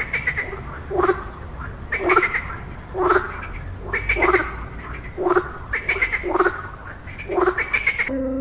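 An animal calling over and over, about once a second, each call falling quickly to a low note, over a steady low rumble.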